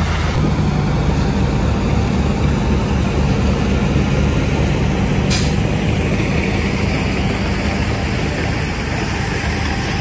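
Heavy diesel engine of earthmoving machinery running steadily under load, with a brief sharp noise about halfway through.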